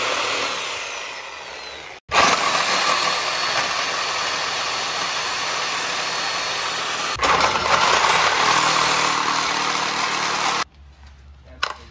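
Corded angle grinder with a cutting disc cutting through a corroded sheet-metal exhaust heat shield. The motor dies away over the first two seconds, starts again sharply just after, runs steadily and grows louder about seven seconds in, then stops suddenly about a second before the end.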